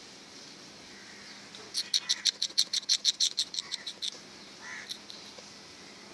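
An animal's rapid chattering call: a run of about eighteen short, high notes at roughly eight a second, lasting about two seconds and fading at the end, followed by one shorter, lower call.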